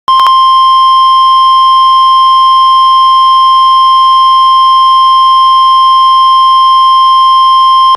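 NOAA Weather Radio warning alarm tone: a single loud, steady 1050 Hz tone held for about eight seconds, signalling that a warning message follows. A couple of brief clicks sound as it begins.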